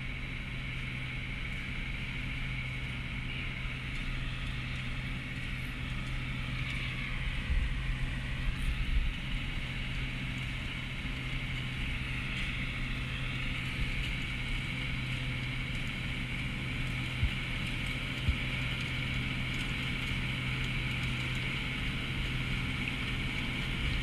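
John Deere 8295R tractor's six-cylinder diesel engine running steadily under load as it pulls a peanut inverter through dry, hard ground: a constant low engine hum with a higher mechanical whir over it. A brief low rumble comes about eight seconds in.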